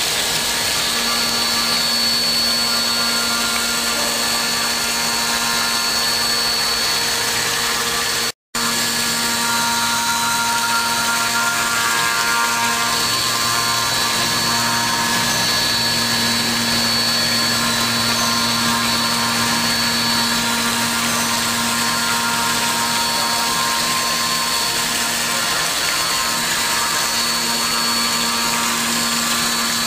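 5-axis CNC milling machine running steadily, its spindle and cutter whining with several steady tones. The sound breaks off for a split second about eight seconds in.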